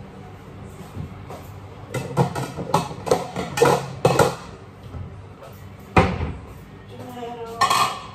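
Kitchen handling noises: a quick run of clattering knocks from dishes and utensils, then a single sharp knock about six seconds in and a short clatter near the end.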